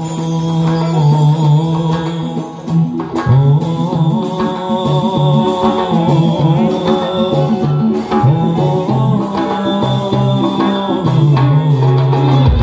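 Live Uzbek band music: a male singer with doira frame drums, an electronic keyboard and a bowed string instrument, over a steady repeating low beat.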